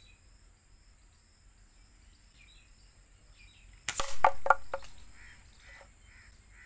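Gamo Shadow 1000 .22 spring-piston air rifle firing once about four seconds in: a sudden sharp crack as the pellet hits and knocks over a small bottle, followed by three short sharp sounds within the next second. Before the shot, a steady high insect drone with faint bird chirps.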